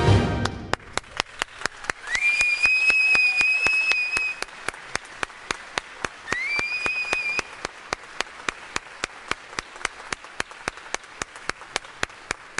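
Concert hall audience applauding, with one clapper close to the microphone keeping a steady beat of about three claps a second. Someone whistles twice, each a rising then held whistle, about two seconds in and again about six seconds in. The applause thins out near the end.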